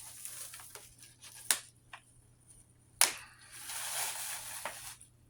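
Paper and packaging being handled and shuffled: rustling, with two sharp clicks about a second and a half apart.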